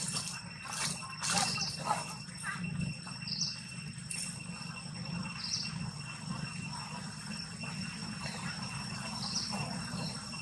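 Steady high-pitched drone of insects, with a short chirp every couple of seconds, over a low steady rumble; a few soft rustles in the first two seconds.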